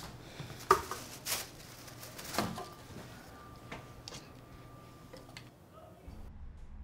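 Quiet room with a few soft knocks and clicks, the loudest about three quarters of a second in. Near the end a low steady hum comes up.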